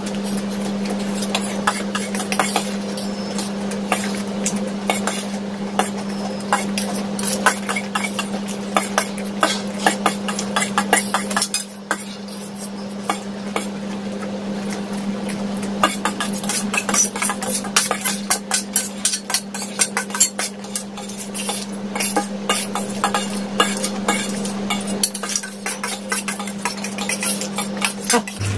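Eating noises from two people eating chowmein noodles: a fork clinking and scraping on stainless steel plates, with chewing and slurping, as many quick irregular clicks. A steady low hum runs underneath.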